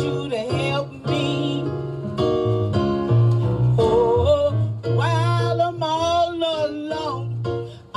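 A woman singing a gospel song into a microphone in long, wavering held notes with vibrato, over an instrumental accompaniment with sustained bass notes; the singing fades near the end.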